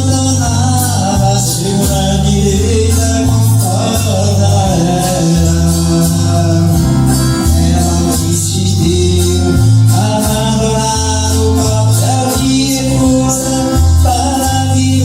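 Music: a band with a pulsing bass line and a held melody above it.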